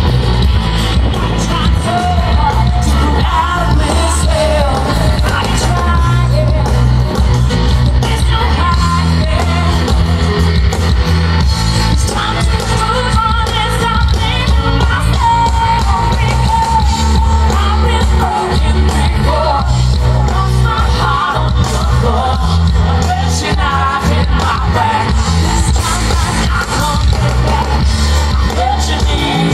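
A live rock band playing through a stage PA: a female lead vocal over electric guitar, bass guitar and drums, with a heavy, steady low end.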